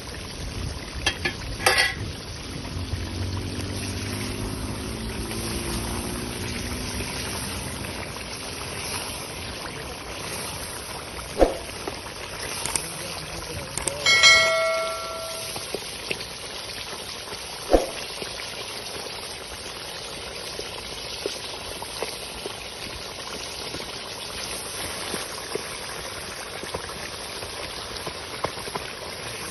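Chicken karahi simmering in a pot, with steady bubbling and sizzling as a wooden spoon stirs it and knocks against the pot a few times. A short chime sounds about halfway through.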